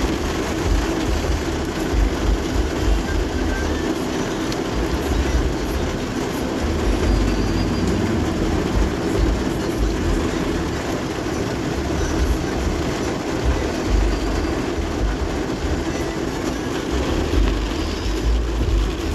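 Heavy rain pouring steadily onto a flooded street: a dense, unbroken hiss with a low rumble beneath it.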